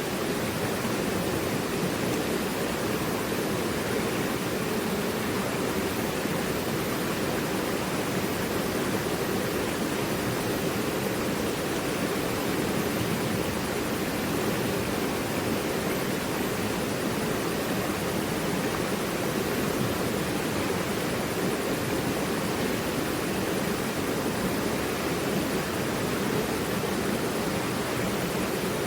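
Mountain river rushing over rocks: a steady, even roar of flowing water with no change in level.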